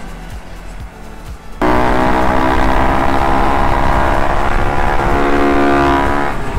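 Minibike engine heard from on board. It runs fairly quietly for about a second and a half, then suddenly much louder at high revs, its pitch rising a little before easing off near the end.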